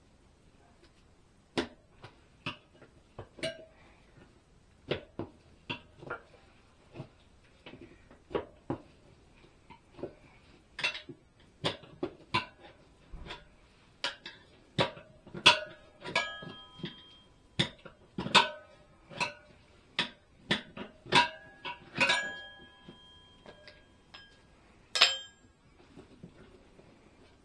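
Metal tools knocking and clinking against a motorcycle wheel during a tyre change: scattered sharp knocks, busier and louder in the second half, where several strikes leave a short metallic ring.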